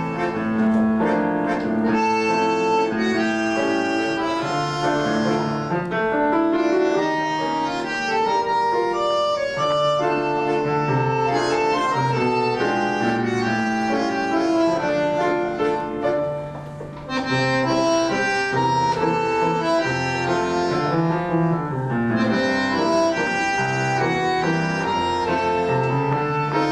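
Two bandoneons and a piano playing a tango vals in three-beat time, the bandoneons carrying the melody over the piano's moving bass. The music briefly drops back about two-thirds of the way through before coming in again at full level.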